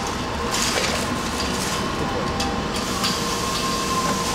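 Pad printing machine running: a steady low mechanical rumble with a few scattered clicks and a faint steady whine.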